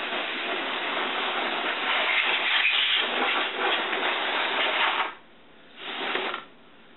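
Can of compressed air spraying: a long hiss of about five seconds, then a short second burst about a second later, blowing accumulated dust out of a 16mm film projector's internal components.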